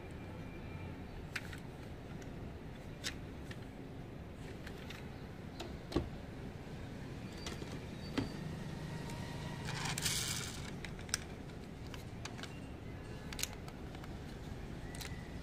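Handling noise of diecast model cars: scattered small clicks and knocks as the metal models are picked up and their parts moved, with a short scraping rattle about ten seconds in as the models packed in a plastic tub are shifted.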